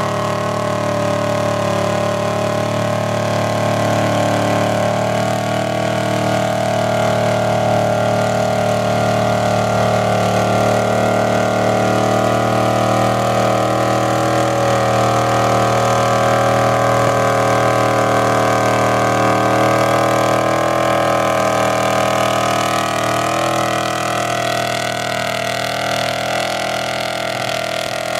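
Mud-bog truck's engine, exhausting through twin upright stacks, held at steady high revs as the truck pushes through deep mud; the pitch stays nearly constant, shifting only slightly a couple of times.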